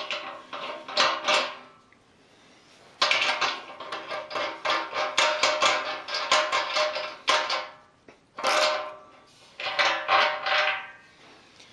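A socket, nut and washers being worked loose on a bolt through the wall of a stainless steel beer keg: runs of quick metallic clicks and clinks, with the keg shell ringing under them. The clicks come in three spells, near the start, in the middle and near the end.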